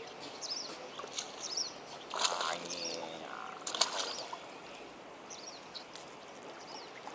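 A hooked tilapia splashing at the pond surface, loudest about four seconds in, over small birds chirping in short, repeated high calls.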